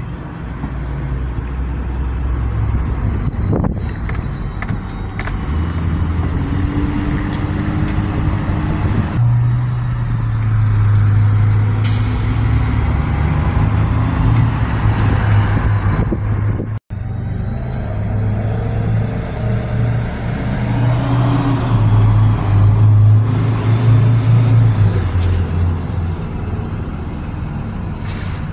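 Motor vehicle engine running at a low, steady drone, its pitch stepping up and down several times as the vehicle changes speed. There is a very short break in the sound just after halfway.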